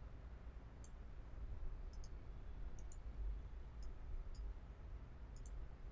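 A computer mouse clicking about six times, a second or so apart, some of them quick double clicks, over a low steady hum.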